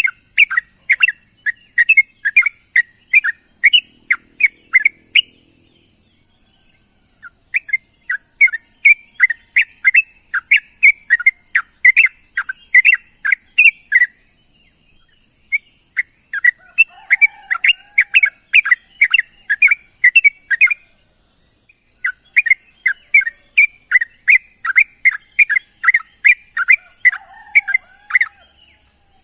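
Yellow-vented bulbul (trucuk) calling in quick runs of sharp chirps, about three or four a second, in bouts of several seconds with short pauses between them. A steady high hiss sits underneath, and a lower warbled note comes in twice.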